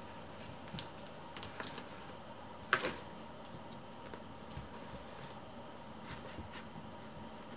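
Kittens playing at a fabric curtain: faint scratches and small clicks of claws and paws, with one louder scraping rustle a little under three seconds in.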